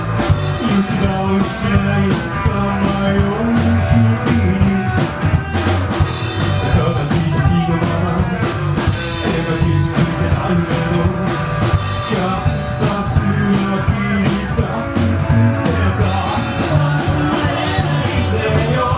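A rockabilly band playing live: guitar, a moving bass line and a steady drum beat, with singing in places.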